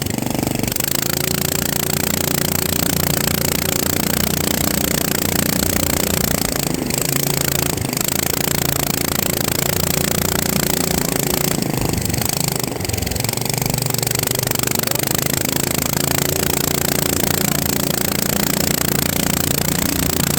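A motor running steadily with a buzzing hum over a constant hiss, its pitch holding level, with a couple of brief slight dips partway through.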